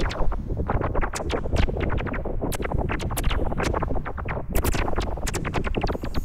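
Repellent sound effect: dense, irregular scratchy clicks crowding over a low rumble.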